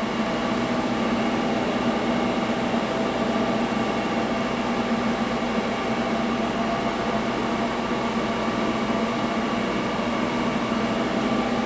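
HOSTON CNC press brake's hydraulic pump motor running at idle: a steady, unchanging hum with a low buzz.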